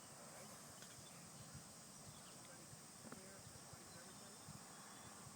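Near silence: faint outdoor ambience with a steady high hiss.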